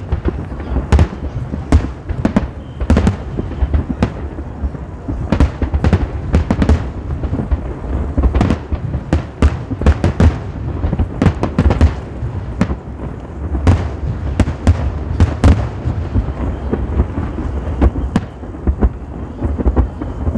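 Aerial fireworks bursting in quick, irregular succession: many sharp bangs, several a second at the busiest moments, over a continuous low rumble.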